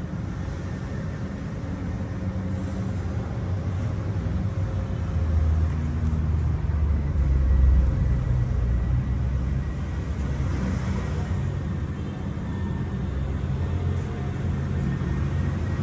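Engine of a 250cc BMW S1000RR-replica sport motorcycle idling with a steady low rumble, growing louder for a few seconds around the middle.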